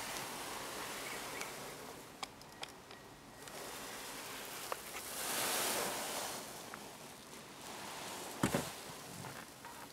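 Quiet rustling and handling noise from a hand-held camera swung around inside a car, with a few light clicks, a swell of hissing rustle midway and one dull knock near the end.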